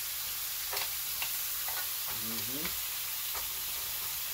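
Marinated swordfish steaks sizzling steadily on a hot, oiled grill plate, with a few light clicks of metal tongs against the grill.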